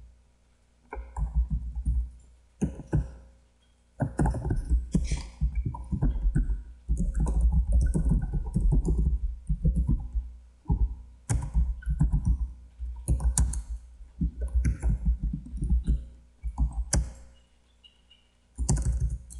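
Typing on a computer keyboard in quick bursts of keystrokes, with heavy thumps and short pauses between bursts.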